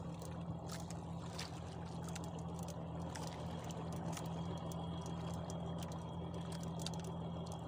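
Outrigger fishing boat's engine running steadily underway, a low even drone with scattered faint clicks and taps.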